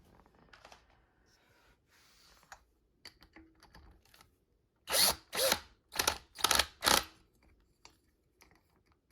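Power drill/driver run in five short trigger bursts, about two a second, starting about halfway in; a few faint clicks of handling come before them.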